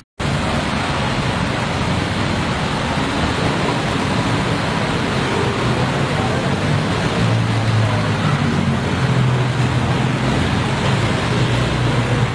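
Steady street noise: an even hiss with the low hum of an idling engine underneath.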